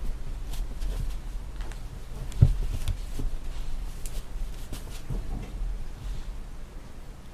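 A whippet digging and pawing at a fleece blanket on a sofa: fabric rustling with irregular soft thumps, the loudest about two and a half seconds in.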